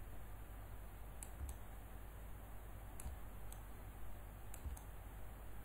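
Faint, scattered clicks of a computer mouse and keyboard in use, several in a few seconds, over a low steady hum.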